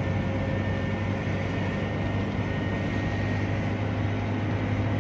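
Car interior noise while driving at highway speed: a steady low engine drone with road and tyre noise.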